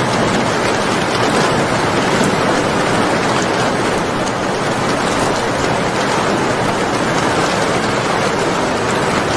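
Steady, heavy rain falling, a dense even hiss with fine patter of drops.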